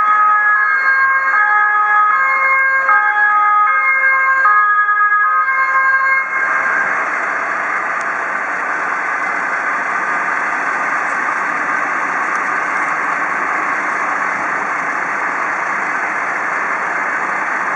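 German emergency vehicle's two-tone siren, alternating between two pitches about every three quarters of a second. About six seconds in it cuts off abruptly and a steady rushing noise takes over.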